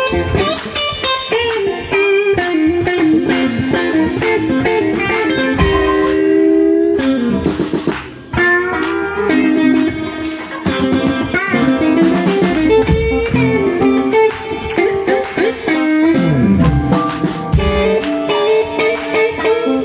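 Live blues band playing without vocals: electric guitar lines over drums and bass, with a short drop in loudness about eight seconds in.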